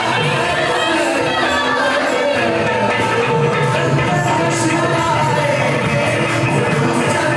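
A song performed live: a singer's voice holding long, wavering notes over musical accompaniment.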